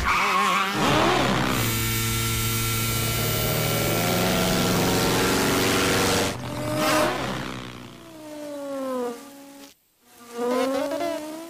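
Cartoon sound effects of flies buzzing like small racing engines: a steady droning hum, then several whines that fall in pitch as the flies zip past. There is a brief drop to near silence about ten seconds in, after which the whining fly passes start again.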